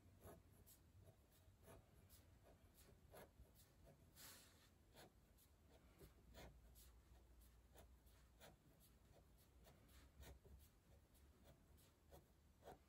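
Faint scratching of a Sharpie marker tip on paper, in short irregular strokes as it traces zigzag lines over a pencil drawing.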